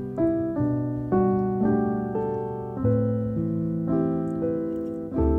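Background piano music: a slow melody of notes and chords struck about twice a second, each fading away.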